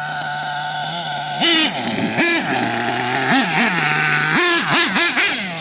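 LRP .32 nitro engine in an HPI Savage RC truck idling, then blipped quickly about eight times from about a second and a half in, its pitch jumping up and dropping back with each blip. The owner hears a slight rattle in it that he suspects comes from failing bearings.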